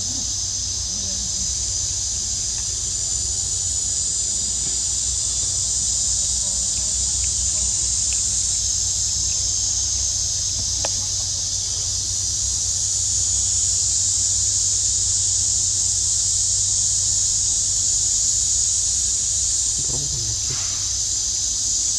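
Forest insects droning steadily at a high pitch, with the drone swelling a little partway through.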